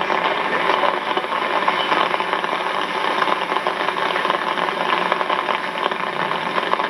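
Steady rattling mechanical noise, like an engine running.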